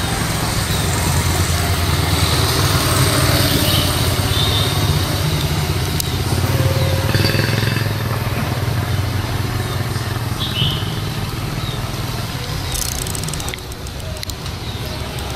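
Road traffic dominated by motorbike engines running close by, a steady low rumble that dips near the end.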